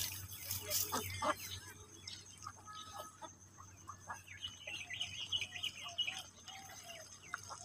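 Chicken clucking, with a run of wavering higher calls about four to six seconds in. Splashes from feet wading through shallow paddy-field water come in the first second or so.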